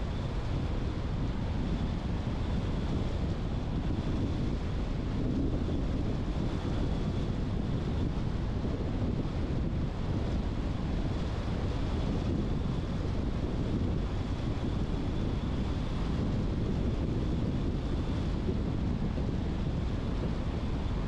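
Steady road noise of a moving car: an even, low rumble of tyres, engine and wind.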